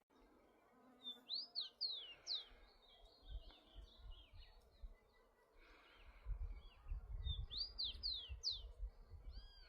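Rufous-collared sparrow singing: two song phrases, each a quick run of high down-slurred whistles, about a second in and again near the end, with a few softer notes between. A low rumbling noise runs underneath, strongest in the second half.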